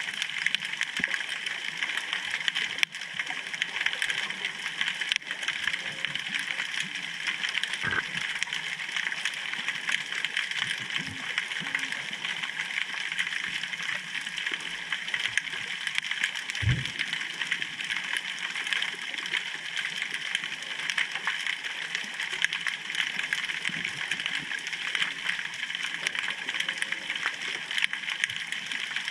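Underwater ambient noise picked up by a submerged GoPro: a steady, crackling hiss made of many tiny clicks. A few brief low knocks come through, the clearest about eight seconds in and a little past halfway.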